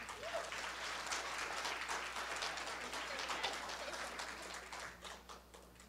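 Audience applauding: dense clapping that starts suddenly and dies down near the end.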